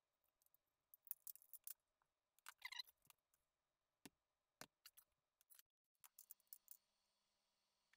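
Faint scattered clicks and snips of wire cutters and small plastic switch parts being handled, with a short cluster of snipping about two and a half seconds in.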